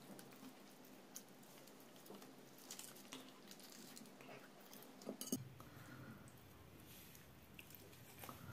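Faint wet handling of raw hake being filleted by hand: small soft squishes and light clicks, with one sharper click about five seconds in, after which a low steady hum starts.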